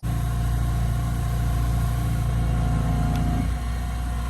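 Electric power polisher running steadily on a headlight lens, buffing in headlight restorer polish after wet sanding. Its motor note changes and drops slightly about three and a half seconds in.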